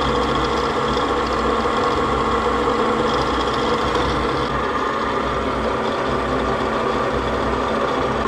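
Drill press motor running steadily, a constant mechanical hum.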